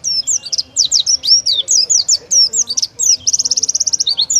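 Oriental white-eye (pleci) singing its rapid 'tembakan' song: a continuous run of high, sharp whistled notes sliding up and down, with a fast trill of repeated notes a little after three seconds in.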